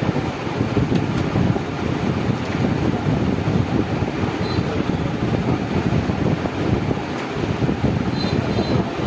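Steady, fairly loud rushing noise, deepest and strongest at the bottom, like wind buffeting the microphone, with no clicks or knocks.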